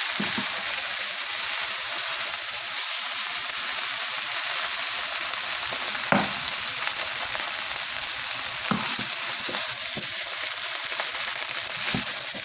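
Fried rice with soy sauce sizzling steadily in oil in a hot pan as it is stirred, with a few short knocks, four in all, spread through the sizzle.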